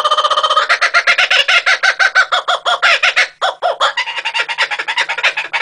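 Laughing kookaburra's laughing call: rapid repeated notes, about ten a second, with a short break a little past halfway.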